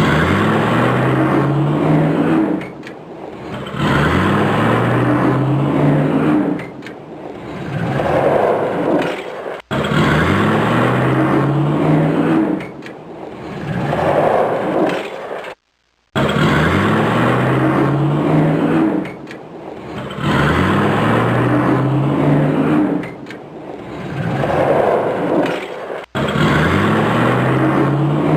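Tuned Nissan GT-R R35 twin-turbo V6 under full-throttle launch-control acceleration: the engine note climbs, drops sharply at each quick upshift and climbs again, about every two to three seconds. The run cuts off abruptly and starts over a few times.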